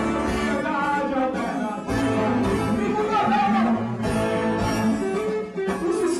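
A live band playing, with a man singing into a microphone over the instruments.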